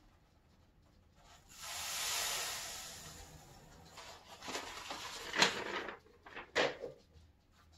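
Granulated sugar hissing softly as it pours through a rolled paper funnel into a glass demijohn, swelling and fading over about two seconds. This is followed by several sharp crinkles of the paper sheet being handled.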